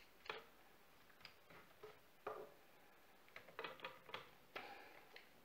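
Faint, scattered small clicks and taps of plastic plug connectors and wires being handled and pushed together, as cables are plugged into a brushless motor speed controller.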